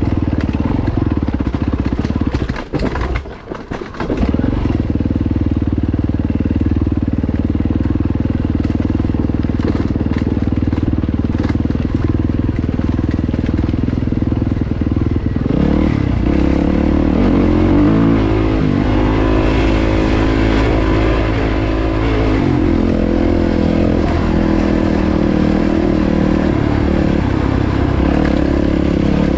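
Yamaha WR450F dirt bike's single-cylinder four-stroke engine running under way. The sound dips briefly about three seconds in, and from about the middle the revs rise and fall several times before steadying again.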